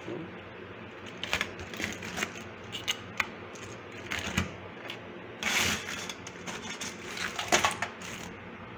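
Hard crab shells clicking, scraping and clattering against each other and a stainless steel sink as a hand rummages through a pile of freshly caught swimming crabs. The clicks come irregularly, with the loudest clatter a little past halfway and another near the end.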